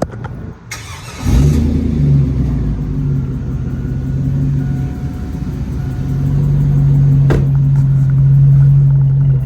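A 2002 Chevrolet Silverado pickup's engine cranks briefly and starts about a second in, then runs with a steady low drone. There is a single click near the end.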